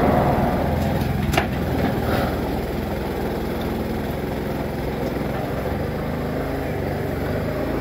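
Hydraulic motor of a tilting hoof-trimming chute running steadily as the chute tips a cow onto her side, with a single metallic clank about a second and a half in.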